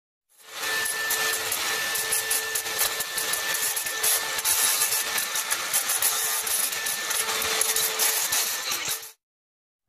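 Cordless angle grinder with an abrasive disc running against driftwood, sanding and shaping a carved face. It makes a steady whine over a rasping grind. It starts just after the beginning and cuts off abruptly about a second before the end.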